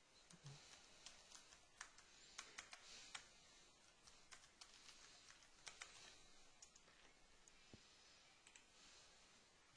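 Faint typing on a computer keyboard: a string of irregular key clicks.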